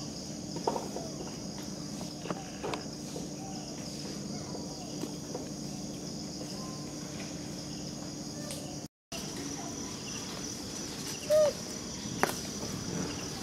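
Steady high-pitched insect drone of outdoor tropical ambience, with scattered faint chirps and clicks. About eleven seconds in comes one short, loud call, and the sound drops out for a moment just before that.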